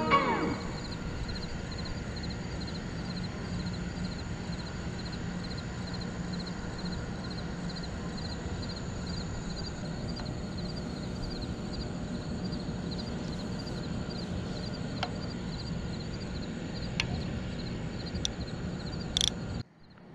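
Outdoor night ambience by the water: a steady background hiss with a fast, evenly repeating high-pitched chirping throughout. A few faint clicks come in the second half, and a short sharp sound near the end, before the sound cuts out abruptly.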